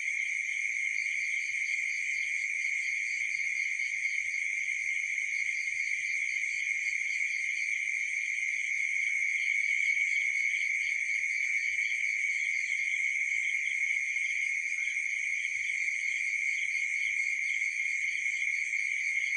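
Night chorus of crickets and other insects: several steady, overlapping trills at different pitches, the higher ones pulsing rapidly.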